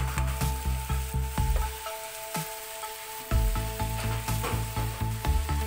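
Ground meat sizzling in a frying pan, with the clicks and scrapes of a spatula stirring it. Background music with a steady low beat plays over it, dropping out for about a second and a half midway.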